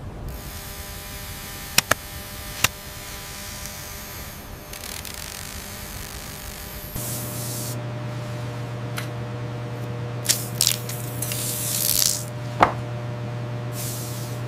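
Hand-held pump spray bottles misting: several short squirts and one longer spray about two-thirds of the way through, over a steady low hum. A few sharp clicks come earlier.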